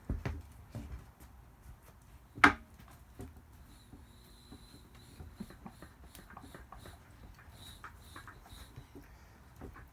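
Vintage bead breaker being worked on a tire: scattered metal knocks and clicks, with one sharp loud clank about two and a half seconds in.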